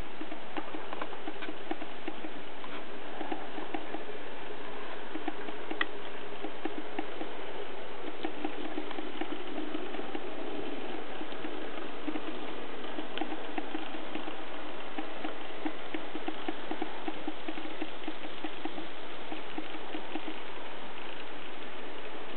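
N scale steam locomotive and its long train of freight cars running on the track: a steady rattle of the small motor and gears with a dense patter of rapid clicks from the wheels on the rails, and one sharper click about six seconds in.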